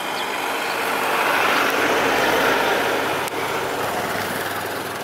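A passing road vehicle: a steady noisy rush that swells to its loudest in the middle and then fades. There is a single sharp click about three seconds in.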